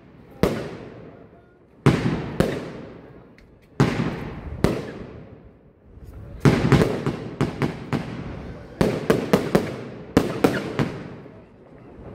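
Aerial firework shells bursting: single sharp bangs a second or so apart, each followed by a rolling echo. From about six seconds in, the bangs come in quick runs of several at a time.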